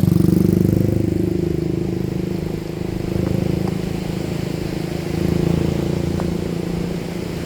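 A motor vehicle's engine running steadily, loudest at the start and then easing off, with two slight swells partway through.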